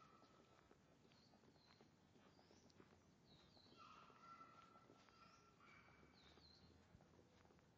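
Near silence with faint bird calls: short high notes that slide in pitch, repeated several times, and a longer held note about halfway through.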